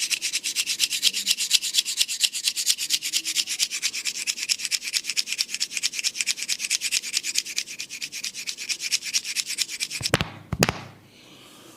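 Hands rubbing briskly back and forth over a client's skin or hair in a barber's massage, in rapid, even strokes. The rubbing stops about ten seconds in with two sharp smacks about half a second apart.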